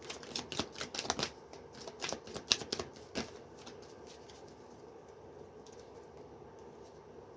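Tarot deck being handled and shuffled for one more card: a quick, irregular run of card clicks and flicks for about three seconds, then quiet.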